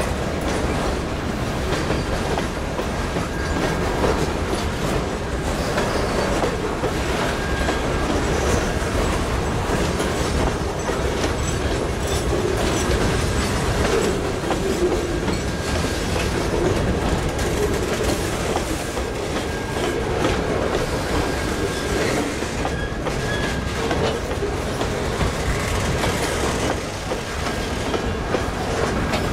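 Freight train of boxcars rolling past: a steady rumble of steel wheels on the rails with clickety-clack over the rail joints, and a faint high wheel squeal now and then.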